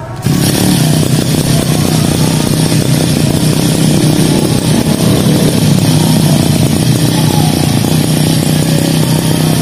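Small petrol engine of a Tanika brush cutter starting about a third of a second in, then running steadily with the choke on. It catches and keeps running after its carburettor has been cleaned.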